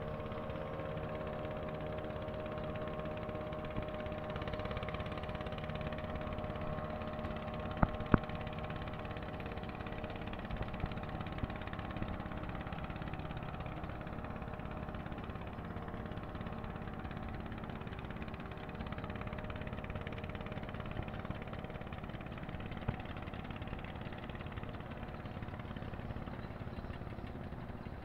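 An engine running steadily at an even pitch, its tone weakening after the first several seconds. Two sharp clicks about eight seconds in.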